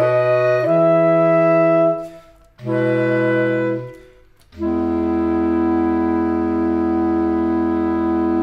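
Clarinet quartet of three B-flat clarinets and a bass clarinet playing sustained closing chords: a held chord breaks off about two seconds in, a short chord follows, and a long final chord begins about four and a half seconds in.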